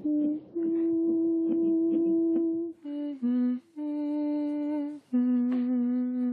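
A woman humming a slow lullaby: a few long, steady notes, each held for about a second or two, with short breaks between them.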